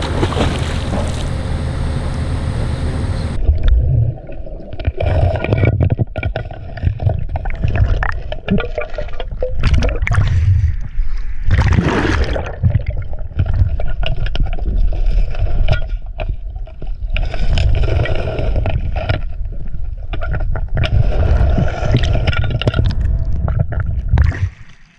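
Splashing from a swimmer's strokes at the river surface, then after about three seconds the sound turns muffled as the camera goes underwater. Underwater gurgling and bubbling follow, with irregular knocks and bumps as the diver works on the sunken truck.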